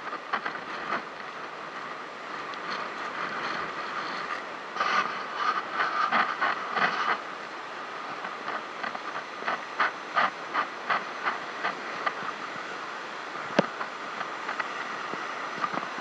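Ocean surf washing and breaking over lava rocks, a steady rushing hiss. Many short sharp clicks and crunches run across it, clustered about a third of the way in and again past the middle, with one sharper crack near the end.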